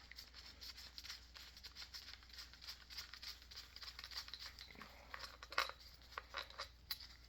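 Faint scattered clicks and rustling, like small parts and tools being handled, with a few sharper ticks about five to seven seconds in, over a low steady hum.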